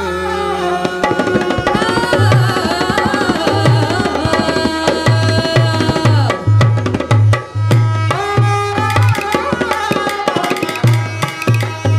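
Indian instrumental music: a melodic line over hand drums, with deep drum strokes coming in about two seconds in and beating a steady rhythm.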